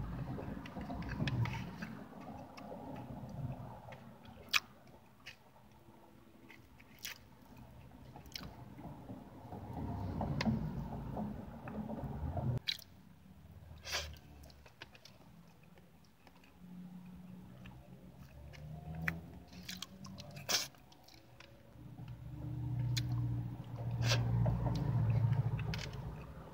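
Close-up wet chewing and lip-smacking of a mouthful of pineapple pie with whipped cream, with sharp smacks as cream is licked off the fingers. A few low hums come in between, the longest near the end.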